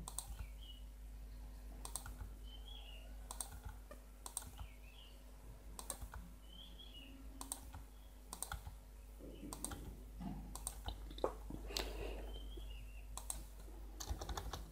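Faint, scattered single keystrokes on a computer keyboard, roughly one a second, as semicolons are typed at the ends of lines of code.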